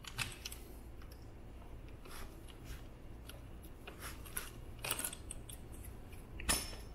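Faint, scattered metallic clicks and rattles of a bicycle roller chain being worked by hand at the rear hub motor's sprocket to loosen it, with a slightly louder click about six and a half seconds in.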